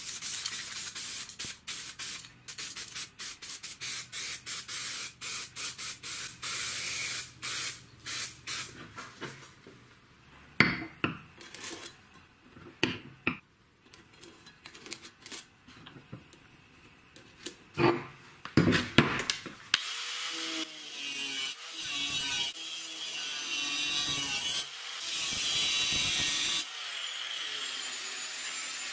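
Aerosol spray can hissing in many short bursts as paint is sprayed onto steel parts. Then a quieter stretch with a few sharp metal knocks and clicks as steel plates are handled and fitted together. From about two-thirds of the way in, an angle grinder runs steadily on steel with a high whine.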